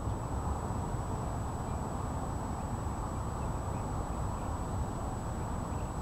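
Steady low outdoor background rumble, like distant traffic or light wind on the microphone, with a faint constant high-pitched whine over it. No pecking taps are heard.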